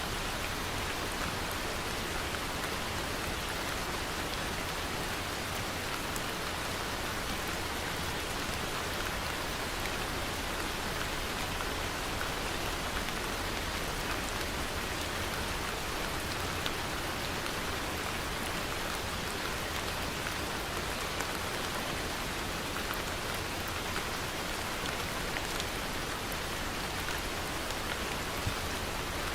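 Steady rain falling, an even hiss of rain with many small drop ticks on a surface.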